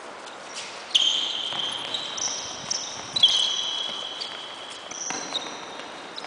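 Futsal being played on an indoor court: sharp ball strikes about one and three seconds in, with high, drawn-out squeaks of players' shoes on the court floor overlapping through the middle.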